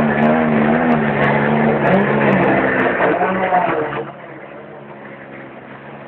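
Audi Quattro Group B rally car's turbocharged five-cylinder engine running at a loud idle, its pitch lifting slightly twice in small blips of the throttle. About four seconds in the sound drops much quieter and settles to a steady idle.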